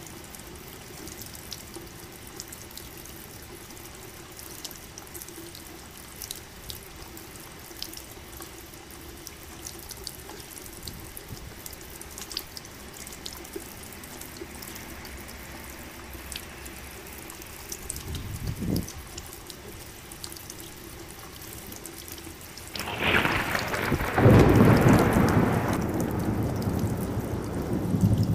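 Steady rain with scattered sharp drips, a brief low rumble of thunder about two-thirds of the way in, then a loud thunderclap near the end that rolls on and slowly fades.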